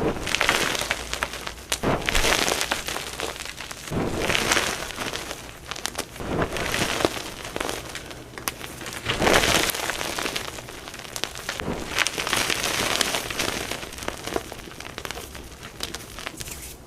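Blocks of plain gym chalk being crushed and crumbled by hand, a dry, dusty crunching and crackling that swells in repeated squeezes, with sharp snaps as pieces break.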